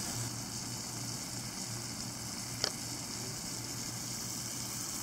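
Sliced steak sizzling in a frying pan over a small fuel-tablet stove: a steady, gentle hiss over a low hum, with one small click about halfway through.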